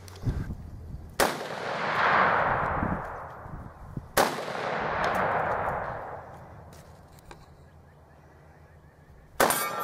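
Three single shots from an AK-pattern rifle, about three seconds apart and then five. Each shot is followed by a long rolling echo that fades over about two seconds.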